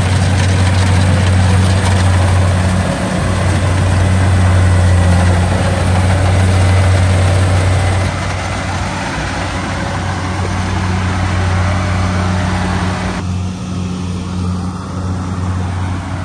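Rice combine harvester's diesel engine running steadily with a deep drone, dropping a little in level about eight seconds in and again about thirteen seconds in.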